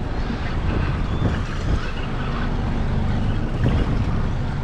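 Wind buffeting the microphone on a small boat in choppy water: a steady low rumble with water sloshing around the hull.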